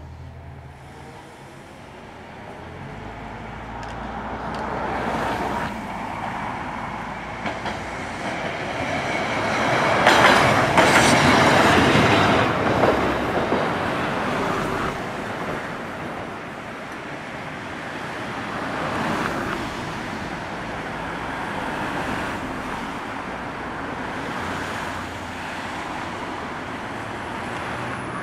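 Toyohashi Railway 3200-type street tram moving off along street track, its motor and steel wheels on the rails swelling to loudest about ten to thirteen seconds in, then easing to a steady rumble. Cars pass on the road as well.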